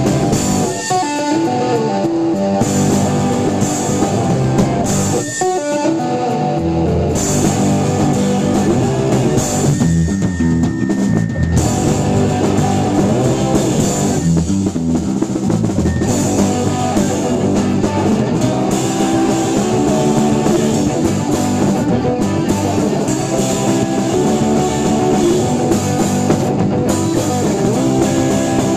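A rock band playing live, with guitar and a drum kit with cymbals. The bass end drops out briefly twice near the start, then the full band plays on steadily.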